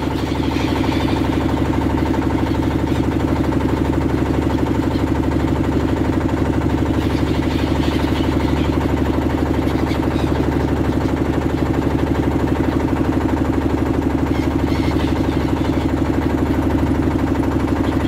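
Boat engine running steadily with an even, rapid chug, loud and unchanging throughout.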